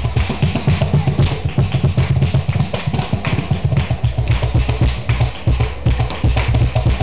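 Cajón played in a fast flamenco rhythm, with a dense run of deep bass strokes and sharper slaps on the front panel.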